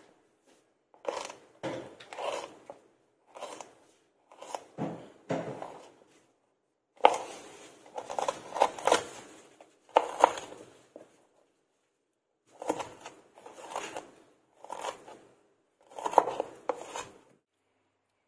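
Kitchen knife chopping ginger on a cutting board: quick clusters of sharp knocks on the board, with short pauses between each run of cuts.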